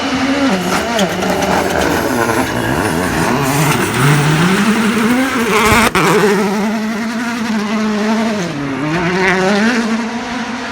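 Hyundai i20 Coupe WRC rally car's turbocharged 1.6-litre four-cylinder engine revving hard, its pitch climbing and dropping at each gear change. A sharp bang comes about six seconds in, at the loudest point, and the engine fades toward the end.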